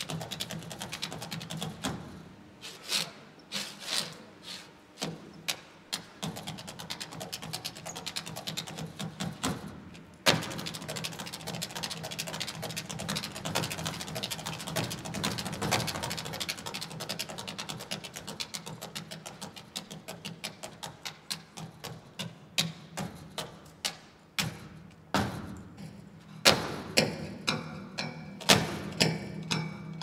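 Percussive music made of rapid mechanical clicks, clatter and knocks over a steady low hum. The clatter grows denser about a third of the way in, and near the end sharp knocks fall into a beat.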